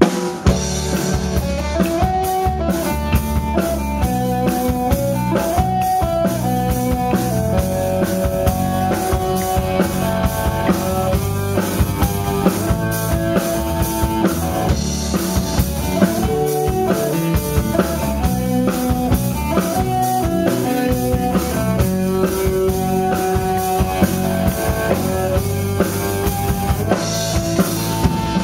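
Live indie rock band playing an instrumental intro on drum kit, electric guitar and bass guitar. The drums keep a steady beat under a guitar figure that repeats.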